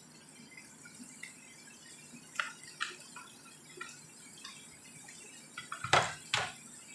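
Shredded chicken crackling faintly in hot oil in a frying pan as a wooden spatula stirs it, with a few light clicks. Near the end, two sharp clacks of kitchenware, the loudest sounds here.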